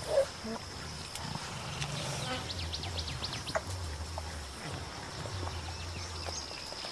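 Mountain gorillas giving low, drawn-out rumbling grunts in the forest. Behind them runs a steady high insect drone, with a quick run of bird chirps about midway and a short sharp call right at the start.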